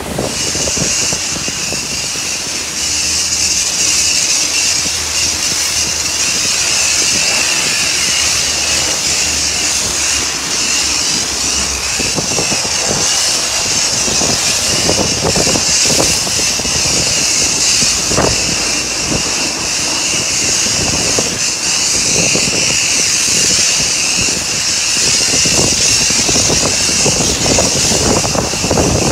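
Foam lance at a self-service car wash spraying thick foam onto a car's bodywork: a steady, loud hiss.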